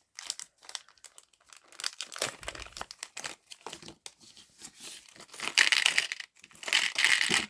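Plastic packaging crinkling and rustling as it is handled and opened to get small charms out. It grows louder over the last two seconds.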